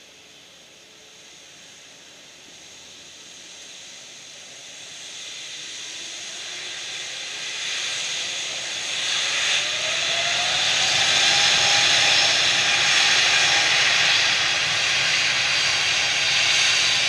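Rolls-Royce Trent XWB engines of an Airbus A350-900 spooling up to takeoff thrust at the start of the takeoff roll. They grow steadily louder over the first ten seconds or so, a whine rising in pitch and then holding over a loud jet hiss.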